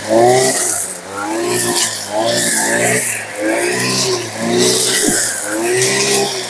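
Brushcutter engine revving up and dropping back about once a second while its spinning chainsaw-chain trimmer head cuts tall grass, with a hiss of cutting each time.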